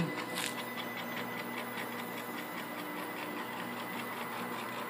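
NEMA 17 stepper motor, driven by a DRV8825 driver board from a CNC program, turning and moving the router carriage along the radial arm. It gives a steady high whine with a fast, regular ticking.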